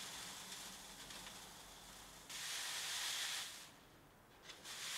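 Dried herbs rustling and scratching against the mesh of stacked wooden drum sieves as they are rubbed through by hand and the sieves are shaken. A louder stretch of rustling starts suddenly about two seconds in, and it drops away for about a second near the end before picking up again.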